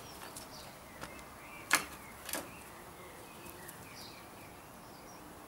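Two sharp clicks about half a second apart, a little under two seconds in, the first the louder, over a quiet outdoor background with a few faint high chirps.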